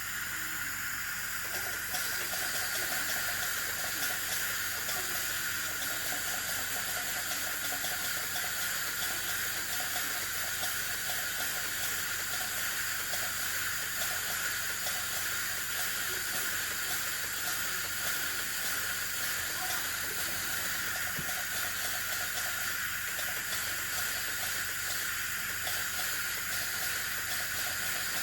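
High-speed dental handpiece running steadily with water spray, cutting an access cavity into a tooth, over a constant suction hiss. The sound comes on sharply at the start and then holds at an even level.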